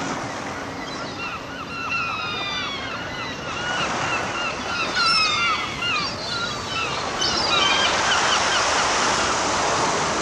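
Gulls calling in a run of short, sharp cries for several seconds, over a steady hiss of surf and wind.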